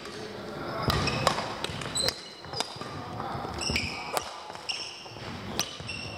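Badminton rackets striking shuttlecocks in a series of sharp, irregularly spaced hits, with short high squeaks of players' shoes on the court floor.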